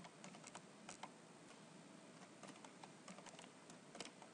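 Faint typing on a computer keyboard: irregular key clicks, several a second.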